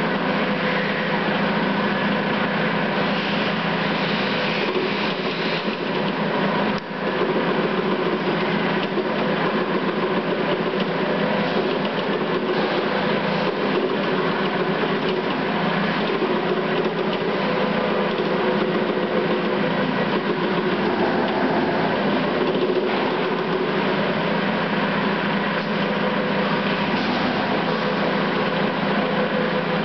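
Industrial trimming machine running steadily under power, a continuous motor hum with several steady tones over mechanical noise. A brief click and drop in level come about seven seconds in.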